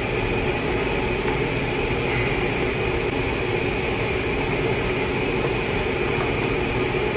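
A steady droning hum with hiss, unchanging throughout, like a fan or other machine running.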